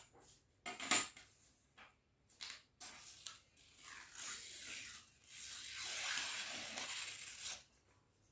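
A sheet of paper being cut: several short, crisp cuts, then a longer continuous cut lasting about two seconds from around five seconds in.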